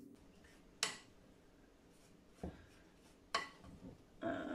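Wooden spoon stirring dry flour and oat mix in a glass bowl: a faint scraping and rustling, with three sharp knocks of the spoon against the bowl.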